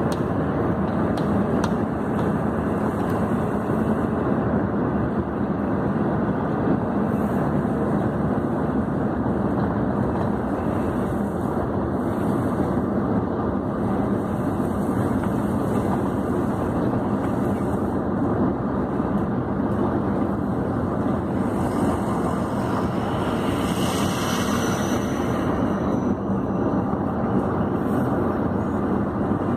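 Steady engine and road noise of a vehicle driving slowly on a muddy dirt track, heard from inside the cab, with a brief higher-pitched sound about 24 seconds in.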